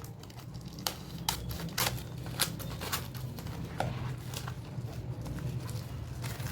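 A cardboard box being cut open with scissors and its packaging handled: irregular snips, clicks and crinkles, the sharpest within the first four seconds, over a low steady hum.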